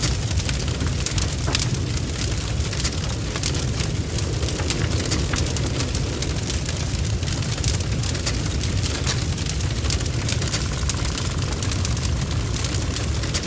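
A large blaze of a barn fire burning, with a steady deep rumble under dense, continuous crackling and spitting.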